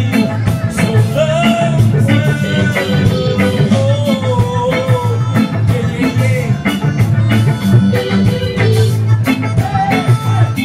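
Live reggae band playing: electric guitars, bass and drum kit keeping a steady beat, with a voice singing a wavering melody over it.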